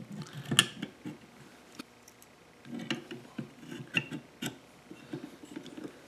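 Light metal clicks and taps from a Stanley bench plane's iron and lever cap being handled and set: one sharp click about half a second in, then a run of small clicks between about three and four and a half seconds.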